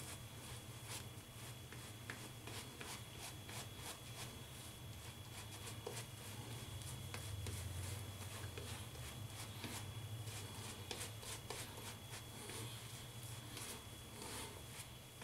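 Shaving brush working lather into about a week's beard stubble: a faint scratchy rubbing full of small crackles, over a low steady hum.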